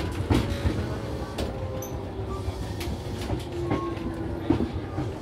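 Tobu 6050 series electric train car running on jointed track: a steady low rumble with the click of wheels over rail joints, the clicks coming further apart as the train slows. A faint motor and gear whine sinks slowly in pitch with the falling speed.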